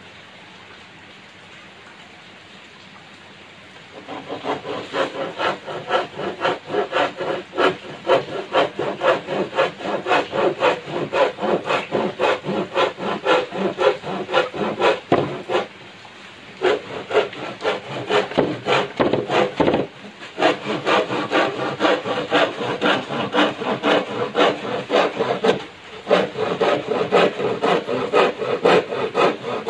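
Hand saw cutting through a thin wooden board in quick back-and-forth strokes, a rasping sound with a few short pauses. Sawing starts about four seconds in, after a faint steady hiss.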